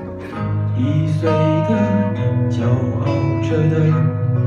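Live music from two strummed acoustic guitars with a melody line over them, growing louder about half a second in.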